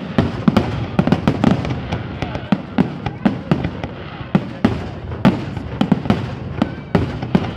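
Fireworks display: a rapid, irregular barrage of aerial shells bursting, several bangs a second, over a continuous rumble.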